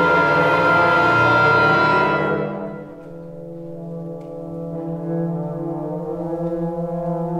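Symphony orchestra holding a loud sustained chord with brass, which fades away about two to three seconds in, leaving a softer low held chord that slowly swells.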